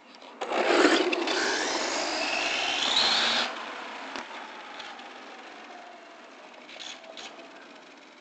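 1/10-scale 4x4 short course RC truck with a 3650-size 3500KV brushless motor on 4S launching at full throttle: about half a second in, a loud burst of tyre noise and a rising electric motor whine lasting about three seconds. It then drops off sharply, leaving a fainter whine that slowly falls in pitch as the truck runs far down the road.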